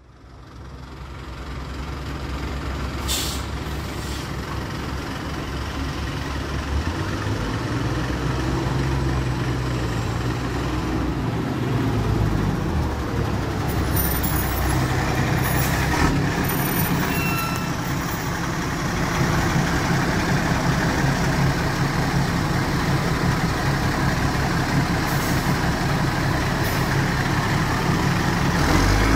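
Rear-mounted Cummins ISBe inline six-cylinder diesel of a Materfer BU1115LE city bus running as the bus moves off and passes. Its note changes in steps a few times, and several short hisses of air are heard.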